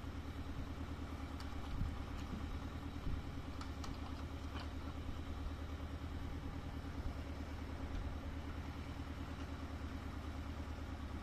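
An engine running steadily at idle, a low even drone with a fast regular pulse, heard from inside a car.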